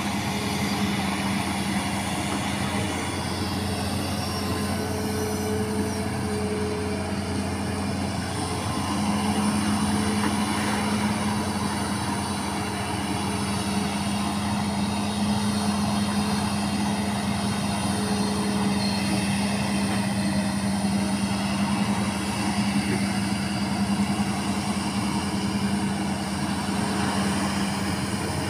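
Diesel engine of a Hitachi ZAXIS amphibious pontoon excavator running steadily under working load, a constant low drone that swells slightly about nine seconds in.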